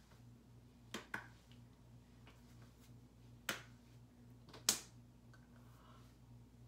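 Hand slaps during silent ASL signing: two sharp slaps close together about a second in, another past the middle, and the loudest a second later, over a low steady hum.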